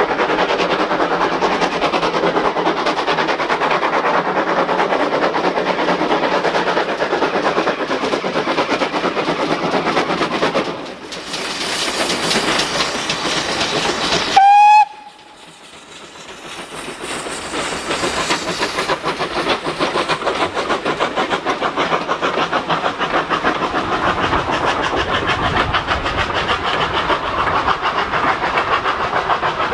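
Steam train running on the line with a continuous rattling clatter of wheels and coaches. About halfway, a short, loud steam whistle blast, slightly rising in pitch, is the loudest sound. Right after it the sound cuts out abruptly, and the running noise then builds back up.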